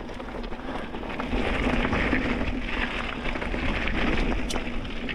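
Mountain bike riding down a loose, rocky dirt trail: a steady rush of tyre noise over dirt and rock, with many small rattles and knocks from the bike, getting louder about a second in.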